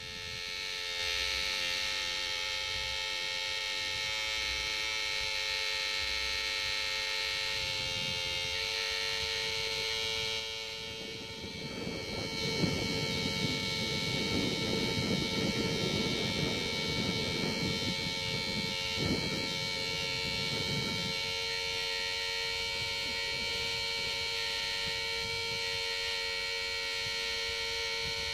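A steady hum of several fixed tones, with a rougher rushing noise over it from about eleven to twenty-one seconds in.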